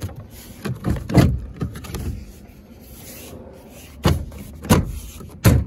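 Hands knocking and rubbing against the plastic inner door trim of an SUV: a cluster of sharp knocks and scrapes in the first second or so, a quieter stretch of light rubbing, then a few more knocks near the end.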